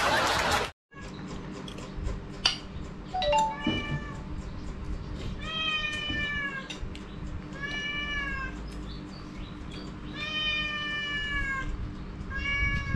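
A loud rush of noise cuts off suddenly just under a second in. Then a domestic cat meows about five times, most of the meows drawn out to about a second, each sliding slightly down in pitch.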